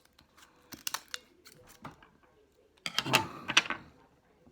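A butter knife clicking and scraping against an oyster shell while prying it open, a few sharp clicks at first, then a louder burst of scraping and cracking about three seconds in.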